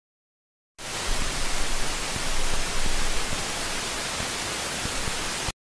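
Loud, steady static hiss from a wireless lavalier recording that was not properly switched on. It cuts in sharply about a second in and cuts off just as sharply near the end, with faint low bumps underneath.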